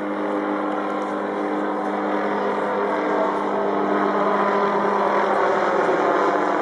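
Small helicopter flying low overhead, its rotor and engine giving a steady hum with several held tones, growing louder toward the end.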